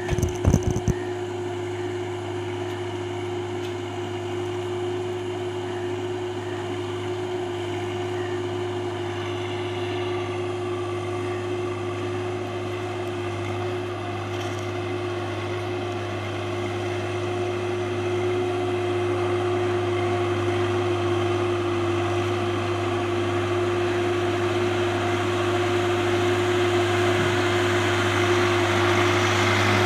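Swaraj 855 FE tractor's three-cylinder diesel engine running at a steady speed as it drives slowly through mud, growing gradually louder as it approaches.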